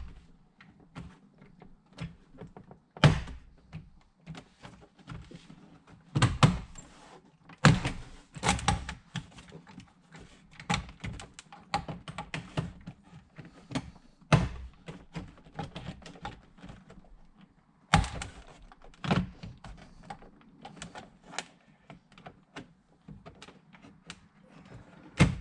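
Plastic car door trim panel being pulled and lifted off the door: irregular knocks, clicks and thunks, several of them louder.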